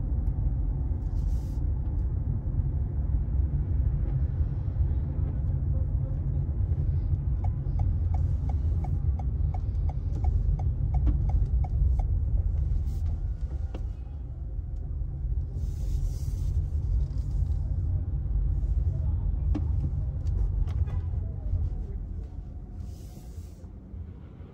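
Steady low rumble of a vehicle on the move, with a run of light, even ticks, about three a second, for several seconds in the middle; the rumble eases off near the end.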